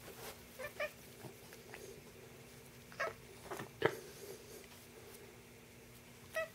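Domestic cat giving a handful of short, pitched calls while play-fighting with a hand, the loudest nearly four seconds in.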